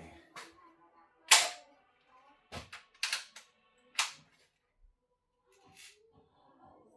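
Sharp metallic clicks and snaps from a Crosman M4-177 multi-pump air rifle's action being worked, five over about five seconds, the second of them the loudest. The rifle is jammed and not shooting: no BB comes out.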